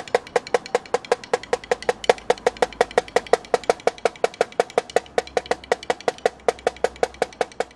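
A run of sharp, evenly spaced percussion clicks, about seven a second, each with a short hollow ring, some strokes accented louder than others.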